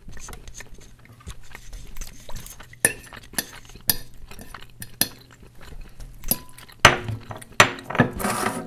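Cutlery clinking and scraping on a plate of pancakes, in scattered sharp clicks that come thicker and louder near the end.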